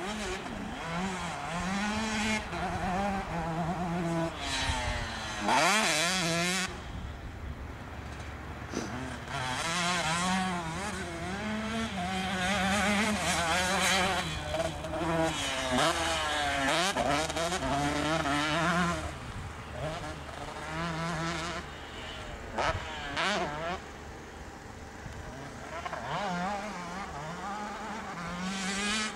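Motocross dirt bike engines racing around a dirt track, revving up and backing off again and again as the riders take the jumps, with gear changes and a few louder close passes.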